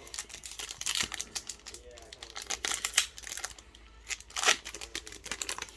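Foil trading-card booster pack wrapper crinkling and being torn open, with scattered sharp crackles.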